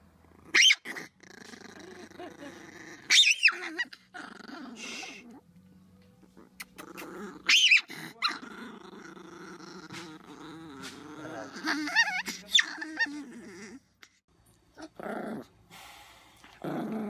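Small chihuahua growling with its teeth bared: a long low rumbling growl broken several times by short, sharp, loud snarling outbursts. After a brief quiet stretch near the end, another small dog takes up the growling.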